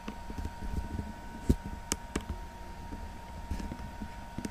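Light handling noises, scattered soft clicks and small knocks as a laptop motherboard is moved about on the bench, the two sharpest clicks about a second and a half and two seconds in. A faint steady high hum runs underneath.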